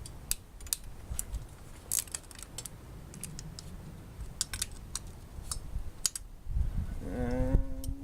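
Hand tools on the 12 mm intake manifold bolts of a Honda D16Y8 engine: scattered, irregular metallic clicks and clinks as the manifold is unbolted.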